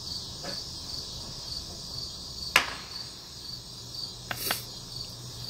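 A cricket chirping steadily in the background, about two to three chirps a second. A single sharp click comes about two and a half seconds in, and two fainter clicks come near the end.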